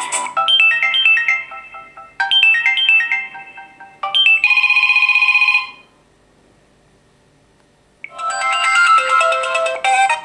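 Samsung Galaxy tablet stock ringtones: a short tune of quick electronic notes plays twice and ends on a held buzzy chime. After about two seconds of near silence, a different ringtone melody begins near the end.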